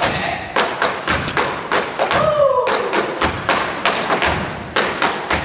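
Canes and shoes striking a wooden stage floor in a steady rhythm, about three sharp thumps and taps a second, in a cane dance routine. A short whoop sounds about two seconds in.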